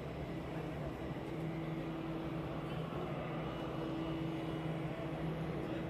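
Steady low mechanical hum with a constant low drone, like a running motor or machinery.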